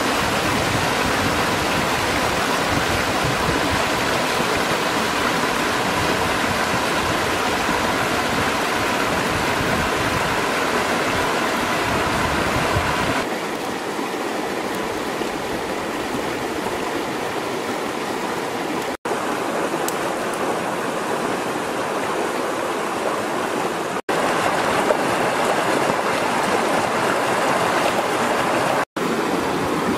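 Mountain stream rushing and splashing over rocks, a loud, steady rush of water. It shifts abruptly in level and tone a few times, with momentary dropouts.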